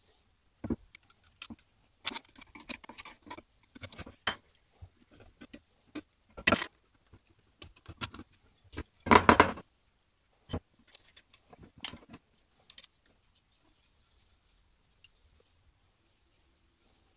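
A steel hand tool scraping, clicking and tapping against the metal edge plate and fittings of an old wooden spirit level, in short irregular bursts, with one louder scrape about nine seconds in. It grows sparse after about thirteen seconds.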